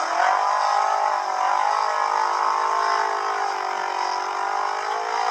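Off-road vehicle's engine running hard under load, its pitch rising slightly at the start and then drifting gently up and down.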